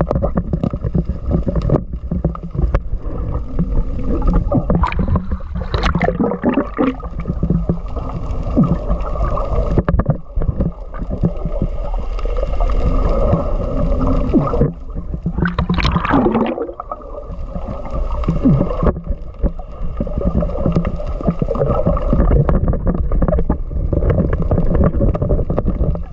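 Muffled underwater rumble and gurgling, heard through an action camera's waterproof housing, with many small knocks and two louder swishing swells around six and sixteen seconds in.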